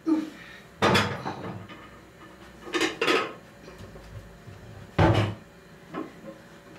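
Cooking pots being handled and set down: four or five separate clatters and knocks, a second or two apart.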